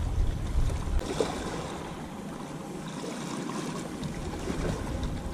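Small waves lapping and splashing against the rocks of a seawall at the water's edge, with a low rumble in about the first second.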